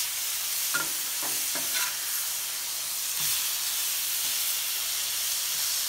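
Top sirloin steaks sizzling steadily on a hot Blackstone flat-top griddle. A metal spatula taps and scrapes briefly on the griddle as a steak is flipped.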